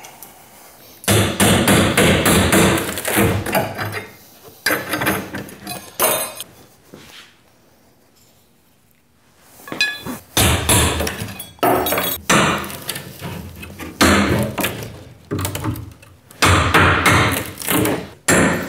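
Claw hammer driving a pry bar into a plywood-and-lumber shipping crate to pry it apart: clusters of sharp knocks, with a pause of a couple of seconds about halfway through.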